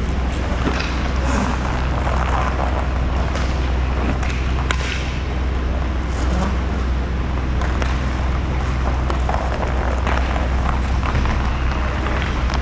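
Inline roller hockey rink: a steady low rumble under the clatter of skate wheels on the sport-court floor and scattered stick-and-puck knocks, with one sharp crack near the middle.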